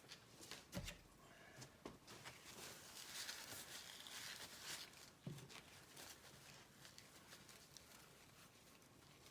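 Near silence with faint handling sounds: a few light knocks and a soft rustling hiss a few seconds in.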